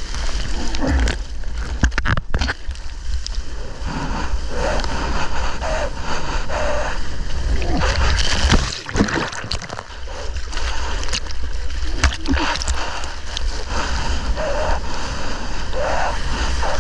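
Seawater splashing and rushing around a surfer on a wave, over a steady low rumble.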